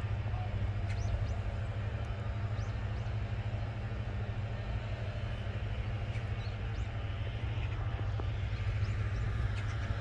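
Steady low rumble of distant city traffic, with no break or change.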